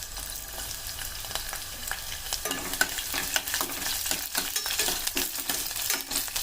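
Green chillies and garlic frying in hot oil, a steady sizzle with sharp crackles. The crackling and clicking get busier about halfway through.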